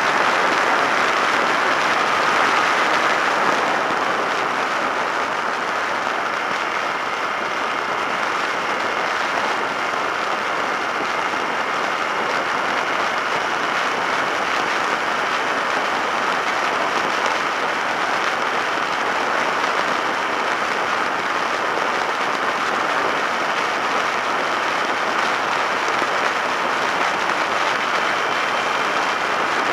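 Steady rush of wind and road noise over the microphone of a camera mounted on a Suzuki SV650S motorcycle riding at speed, with faint thin steady whine tones above it.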